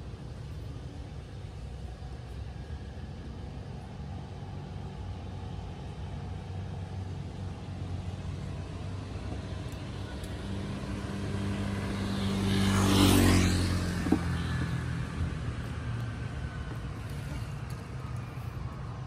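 A motor vehicle passing on the road: its engine and tyre noise grows for a few seconds, peaks about two-thirds of the way through, then fades, over a steady low rumble. A single sharp click comes just after the peak.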